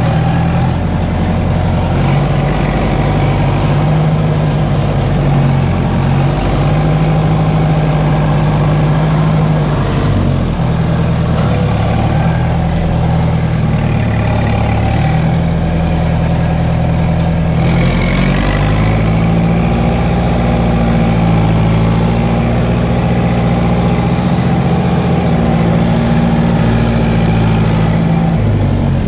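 Fiat 70-66 tractor's four-cylinder diesel engine running steadily, heard from inside the cab, with the engine note changing briefly about ten seconds in and again around eighteen seconds in.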